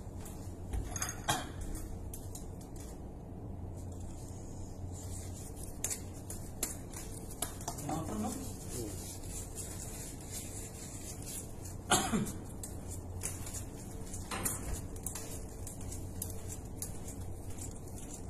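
A few sharp metallic clinks of steel hand tools, the loudest about twelve seconds in, over a steady low hum.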